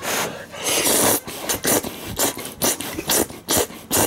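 A person eating stir-fried instant noodles: a longer slurp about a second in, then short, quick mouth noises of chewing, about two or three a second.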